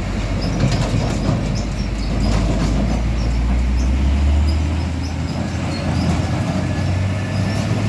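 Road traffic with a heavy diesel truck passing close by, its low engine rumble swelling about halfway through and then easing off.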